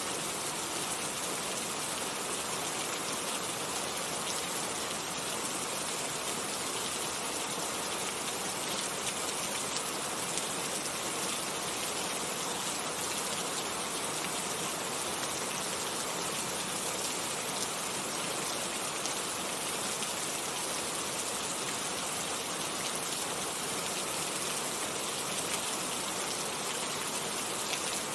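Steady rain falling, an even hiss with scattered small drop ticks that holds level throughout.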